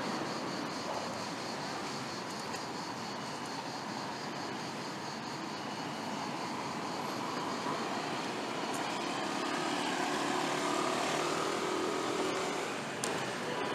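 Aircraft passing overhead: a broad engine rumble that builds in the second half and eases off near the end, over the hum of city street traffic.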